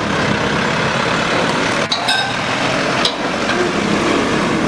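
Heavy police tactical armoured vehicle driving past, its engine and tyres making a loud, steady noise. A brief high clink comes about two seconds in.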